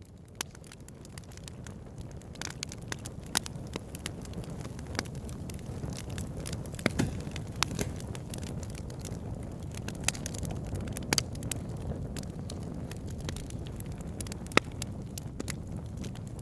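Wood fire burning in the open: firewood crackling and popping with irregular sharp snaps over a steady low rumble of flames, fading in over the first second or two.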